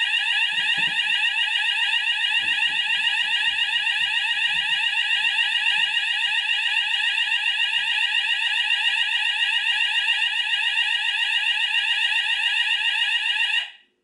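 Fire alarm sounder on a Hochiki ESP addressable fire alarm system, set off by a detector under test, sounding a loud, fast sweeping alarm tone that cuts off suddenly near the end.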